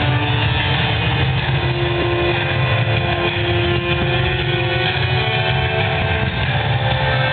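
Amplified soundtrack of a projection-mapping show: a steady low rumble under long held tones.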